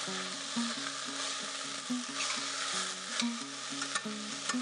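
Corn kernels, onion and garlic frying in oil in a stainless steel pot, sizzling steadily while a spoon stirs them, with scattered clicks and scrapes of the spoon against the pot. A low melodic line of background music plays underneath.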